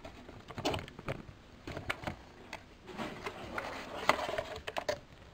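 Cardboard box and paper inserts being handled: irregular rustling, scraping and light taps as a hand rummages inside the box.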